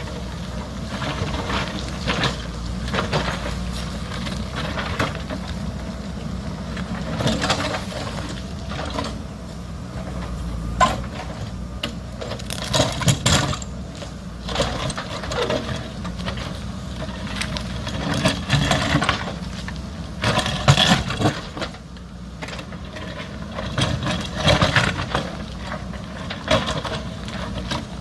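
JCB backhoe loader's diesel engine running steadily while the bucket digs into the rocky hillside, with irregular knocks and scrapes of steel on rock and stones.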